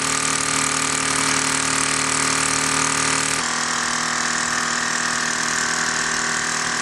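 Luton Bowman PW 202 overtype toy steam engine running steadily on live steam: an even mechanical purr over a hiss. Its note steps slightly lower about halfway through.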